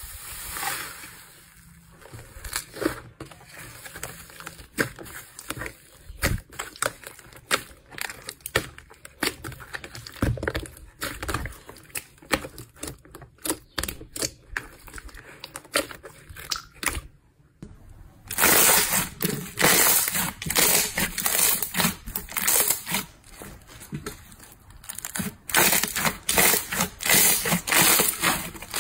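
Hands squeezing and pressing slime, giving quick crackling and popping clicks. The clicks are sparse and quieter at first, then much louder and denser from about two-thirds of the way in.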